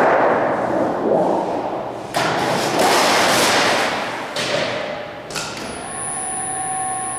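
Large 24-gauge sheet-metal panel, 8 feet long, flexing and rumbling as it is flipped over by hand and laid onto a folding machine's bed, with thumps and a few sharp knocks as it lands and is slid into place.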